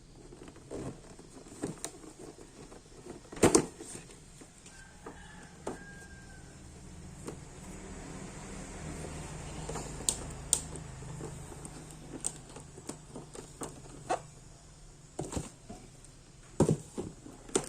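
Scattered clicks, knocks and light rustles of an action figure and its plastic and cardboard packaging being handled, the loudest knocks about three and a half seconds in and near the end, over a faint low hum that swells in the middle.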